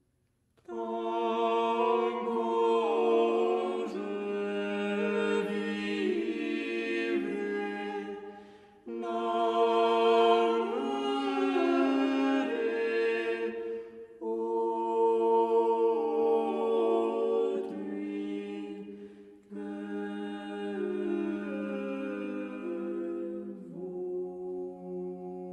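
Unaccompanied voices singing a French chanson in several parts, with long held notes and lines moving against each other. The singing comes in four phrases, each starting afresh after a short break.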